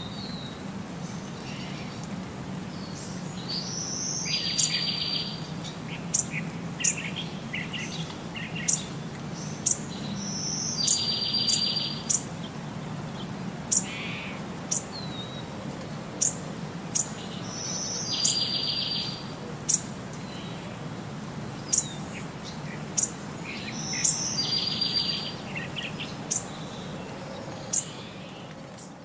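Bird calls: a short buzzy trill recurring about every six and a half seconds, with brief sharp high chirps in between, over a steady low hum. The same pattern repeats unchanged throughout.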